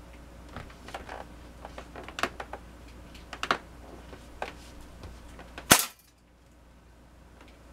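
A few light clicks, then, about three-quarters of the way in, a single sharp crack from a Winchester M14 CO2 pellet rifle (made by Daisy) being fired.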